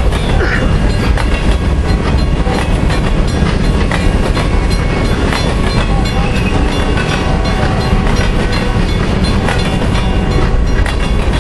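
Freight cars of a manifest train, mostly covered hoppers, rolling past close by: a loud steady rumble of steel wheels on rail, broken by irregular clicks as the wheels cross rail joints.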